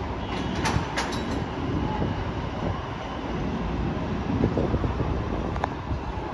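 New York City subway train running on the rails, a steady rumble with a few sharp metallic clicks from the wheels and track.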